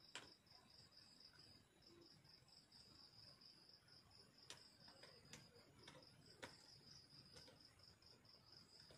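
Near silence with a faint high chirp pulsing steadily about four times a second, like a cricket, and a few faint light clicks.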